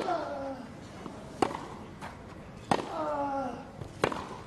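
Tennis rally on a grass court: rackets strike the ball four times, about one and a third seconds apart. A player gives a short loud grunt with every other strike.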